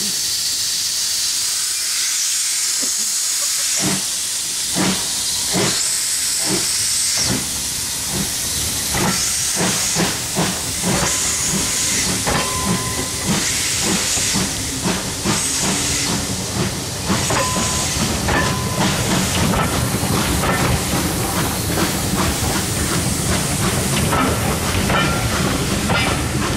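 Steam train passing close by: a steady hiss of escaping steam, with the wheels of the passenger coaches clicking over the rail joints from about four seconds in, the clicks coming thicker as the carriages roll past.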